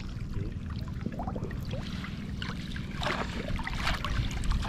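Water splashing and trickling lightly over a steady low rumble, with a couple of brief splashes about three and four seconds in.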